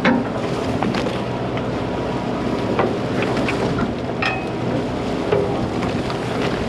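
Steady hum of a fishing party boat's engine, with wind on the microphone and a few scattered light knocks.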